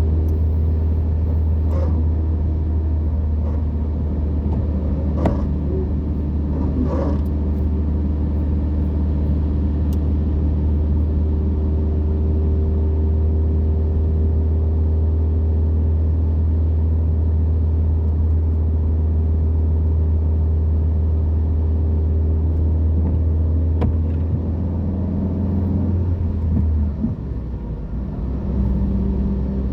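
Motor-vehicle engine running at a steady speed: a deep, even hum with steady overtones, whose pitch drops and changes near the end.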